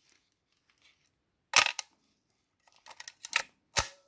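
Topcon RE-2 35 mm SLR firing its shutter twice, about 1.6 s and 3.8 s in, each a sharp clack of the mirror slapping up and back down, with a run of lighter mechanical clicks between the two releases.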